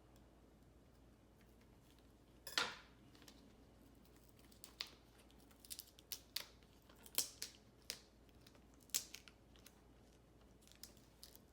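Knife blade working at the adhesive tape over a laptop's display cable connector: one sharp click about two and a half seconds in, then a run of short, light clicks and scrapes against the panel.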